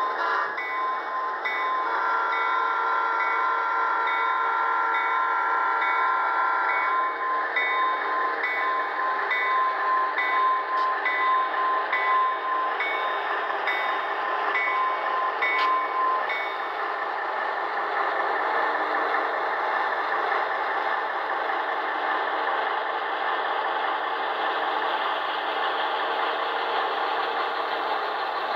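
Tsunami sound decoders in an HO-scale B&O EMD E-unit pair playing diesel locomotive sound as the model passes. A horn sounds for about five seconds a couple of seconds in, and a bell dings about once a second until past the middle, over engine rumble that grows louder from about eight seconds on.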